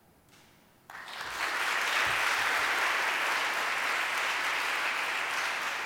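A large audience applauding, breaking out suddenly about a second in after a brief hush, then holding steady.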